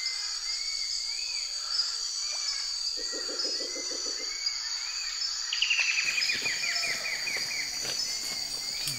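Rainforest ambience: a steady high-pitched insect drone with scattered short bird calls over it. About three seconds in comes a low, fast pulsing call lasting about a second and a half, and near the middle a quick trill of notes falling in pitch.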